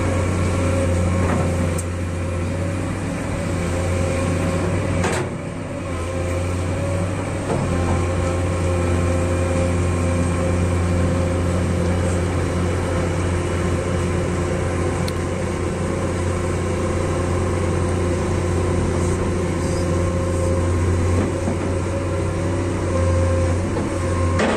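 Komatsu PC200 hydraulic excavator's six-cylinder diesel engine running under load as the machine digs and heaps wet mud, a steady deep drone that dips briefly about five seconds in.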